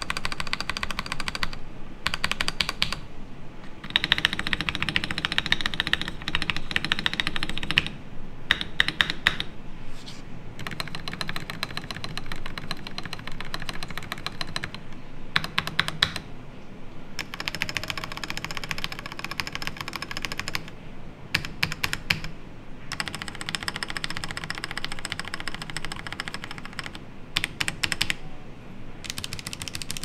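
Akko PC75B Plus mechanical keyboard with Akko CS Jelly Black linear switches and PBT double-shot ASA-profile keycaps being typed on: fast runs of keystrokes broken by short pauses. The case is dampened with silicone foam in the bottom case, a switch pad and PCB foam.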